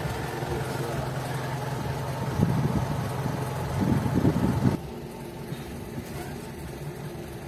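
Car engine idling with a steady low hum. About five seconds in, the higher outside noise drops away suddenly and only the engine's hum is left.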